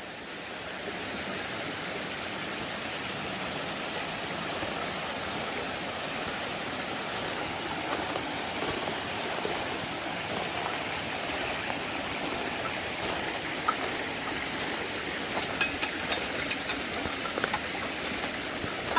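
Creek water running steadily, with a few sharp clicks near the end.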